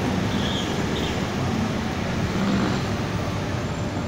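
Steady street traffic noise, an even low rumble with hiss.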